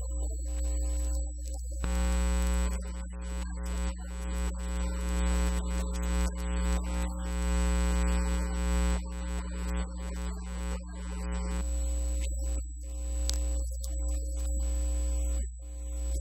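Background electronic music: held synthesizer tones over a steady low hum, with one long chord sustained from about two seconds in until past the middle.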